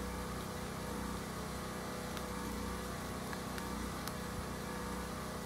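A steady low mechanical hum, like an engine or generator running, with a few faint clicks.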